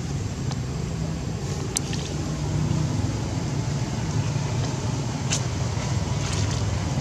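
Steady low rumble with a few faint, sharp clicks, about two seconds in and again near five and a half seconds.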